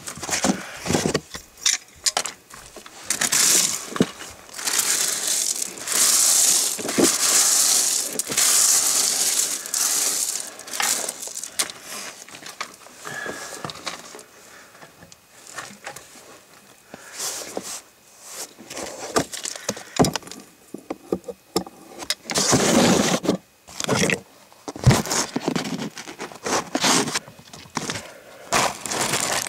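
Brass pipe fittings being handled and screwed together by hand at a well tee: irregular metallic clinks, scrapes and rubbing, in uneven bursts.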